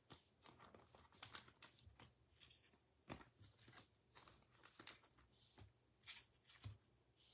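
Faint scattered ticks and rustles of trading cards and packs being handled and set down.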